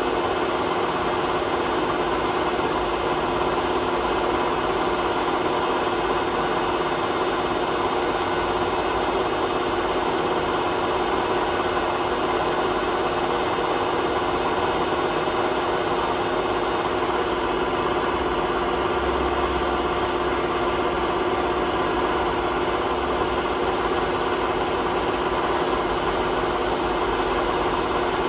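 Hotpoint WMA32 washing machine on its spin cycle, motor and drum running at a steady speed with a constant whine. The drum bearings are worn, and the drum rubs against the bearing seal.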